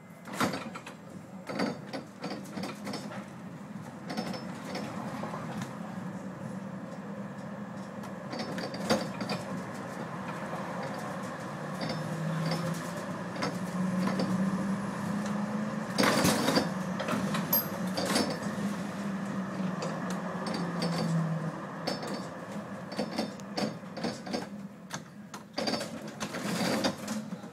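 Driver's-cab sound of a Vienna Type E1 tram running along the street: a steady motor hum that rises in pitch about halfway through, then falls again, under constant clicking and rattling from the cab. A loud sharp rattling crash comes a little past the middle.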